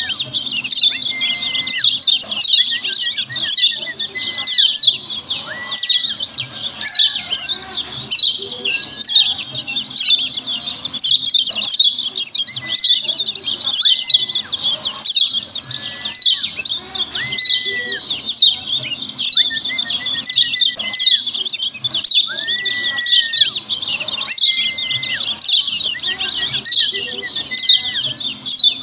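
Yellow white-eye (kecial kuning) giving a fast, unbroken stream of high 'ciak' chirps, with a clear slurred whistle note about every two seconds. This is a lure call, used to draw other white-eyes into answering.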